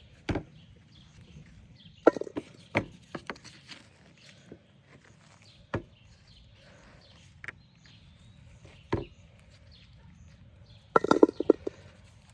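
Irregular thuds and scrapes of potatoes being dug out of garden soil, with a quick run of knocks near the end.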